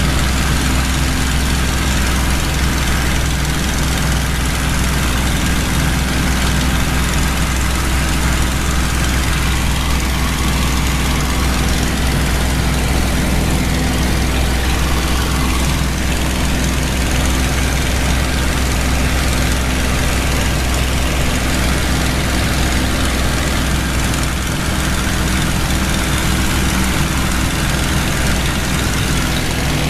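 Piston fighter plane's engine running steadily in cruise flight, heard from inside the cockpit, with a steady rush of slipstream noise over it.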